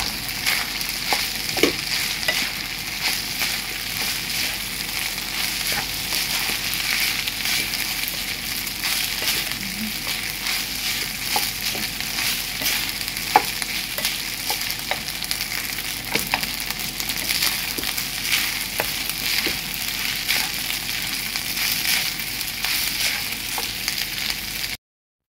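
Rice and vegetables sizzling as they fry in a non-stick pan, with the steady hiss broken by short scrapes and taps of a wooden spatula stirring and turning the rice. The sound cuts off suddenly near the end.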